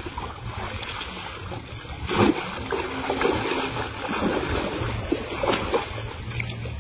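Pond water splashing and churning as men wade through it and large fish thrash in a seine net, with irregular splashes; the loudest comes about two seconds in.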